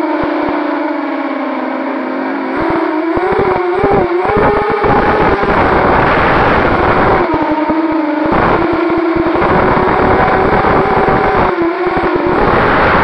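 A 250-size FPV racing quadcopter's brushless motors and propellers whining, heard from on board, the pitch dipping and rising with the throttle. Loud bursts of rushing air come through the middle and near the end.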